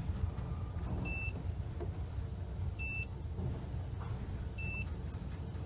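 Passenger lift car travelling with a steady low rumble, while a short high electronic beep sounds about every two seconds, three times in all.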